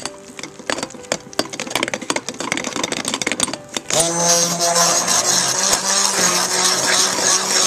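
A metal utensil clacks and scrapes rapidly through thick potassium soap paste in a crock pot. About four seconds in, a small electric motor starts and hums steadily with a hiss.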